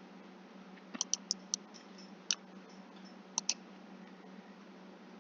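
Computer mouse buttons clicking: a quick run of four clicks about a second in, one more a little later, then a pair, over a steady low hum.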